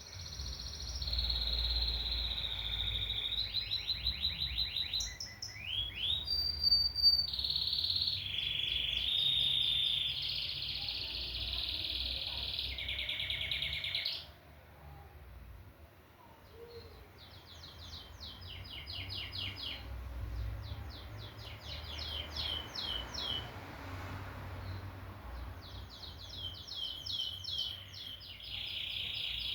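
Domestic canary singing: a long, loud song of held whistled notes and rapid trills that breaks off suddenly about halfway through, followed by quieter, shorter trilled phrases that grow louder again near the end.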